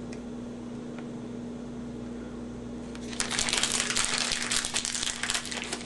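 Plastic hardware packaging crinkling and rustling as it is handled and opened to get a brass pipe bushing out, starting about three seconds in and going on busily to the end.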